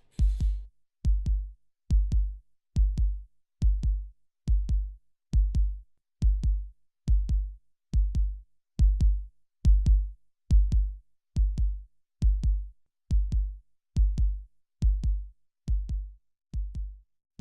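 Heartbeat rhythm made from processed everyday sounds: low double thumps, lub-dub, each with a faint click, repeating evenly at about 70 beats a minute and getting a little softer near the end. A brief scratchy hiss fades out about half a second in.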